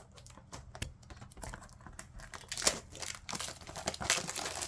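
Plastic shrink-wrap on a trading-card box being cut and torn open: scattered light clicks and taps at first, then crinkling and tearing that grows denser and louder from about halfway through.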